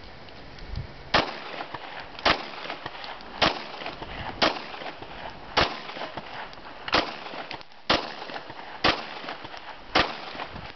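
Nine pistol shots fired one at a time at a steady pace, about a second apart.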